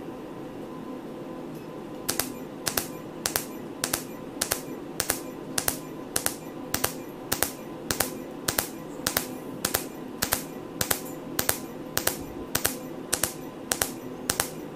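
Erbium-YAG laser handpiece firing pulse after pulse on skin, a sharp snapping click with each pulse, often in close pairs, about two a second, starting about two seconds in over a steady machine hum. Each snap is a pulse ablating a thin layer of the epidermis in a superficial laser peel.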